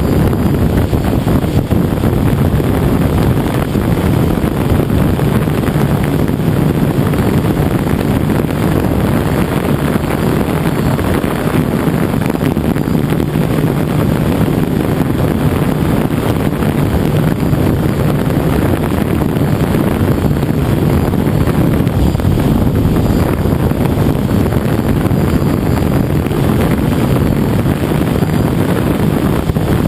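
DJI F550 hexacopter's six motors and freshly balanced propellers running steadily in flight, heard from the GoPro on its frame, with wind rushing on the microphone.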